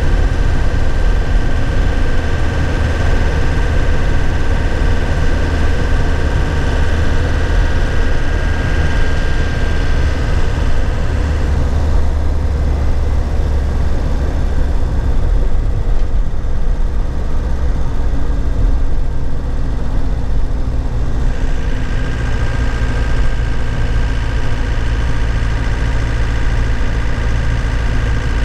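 2001 Nissan Cabstar light truck's engine running, heard from inside the cab with road noise. About halfway through the high road hiss drops away, and near the end the engine settles into a steady low note.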